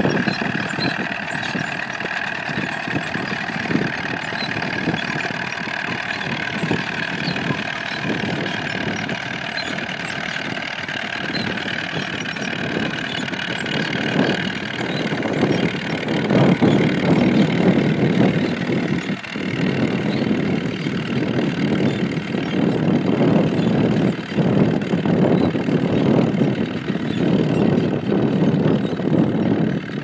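Allis-Chalmers Model M crawler tractor's engine running steadily under load as it pulls a trailed plough.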